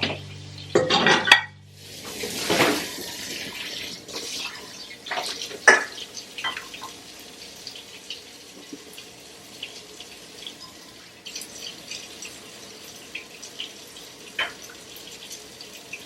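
Water running at a sink, with scattered clinks of dishes and cutlery. Background music ends about two seconds in.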